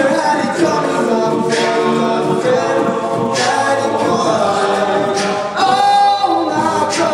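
All-male a cappella group singing in harmony, several voice parts sounding together without instruments.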